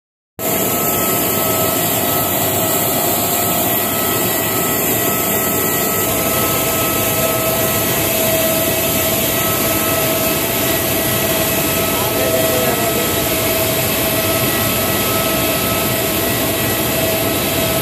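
Jet airliner engines running steadily: a constant rush of noise with a steady whine, loud and unchanging throughout.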